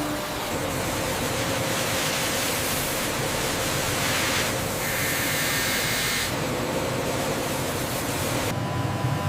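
Steady machinery noise in a factory: a broad hissing rush with faint steady hums, its character shifting a couple of times.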